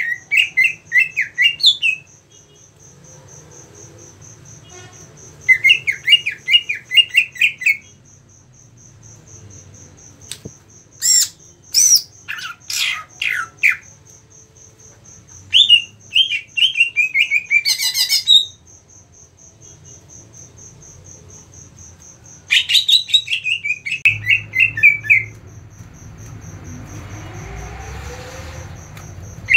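Caged green leafbird (cucak ijo) singing its agitated, aggressive 'ngentrok' song in five bursts of rapid, chattering phrases a few seconds apart, some with sharp sweeping notes. A steady, high pulsing tone runs underneath throughout.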